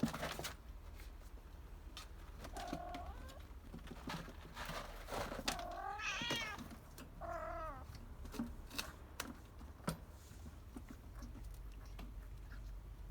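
Kitten mewing three times, the middle call the longest and wavering, with scattered light taps and rustles between the calls.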